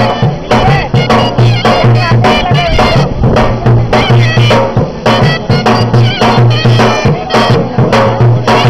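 Traditional Indian wedding music: a reedy melody over a low drone, with a steady drum beat.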